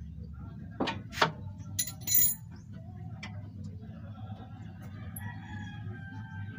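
A few sharp metallic clicks and clinks in the first two and a half seconds, from a wrench working the loose battery cable terminal clamp, over a steady low hum.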